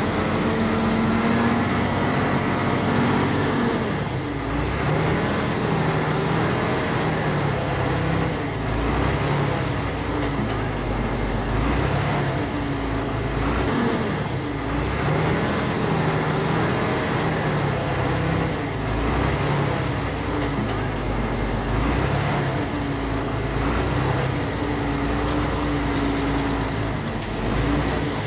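Diesel engine of a small bulldozer working, its pitch rising and falling every few seconds as the load comes and goes.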